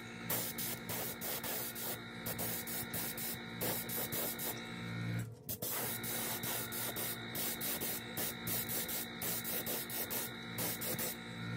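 Iwata airbrush spraying paint in repeated short hissing bursts as the trigger is worked, over the steady hum of the air compressor. Everything cuts out briefly about five seconds in.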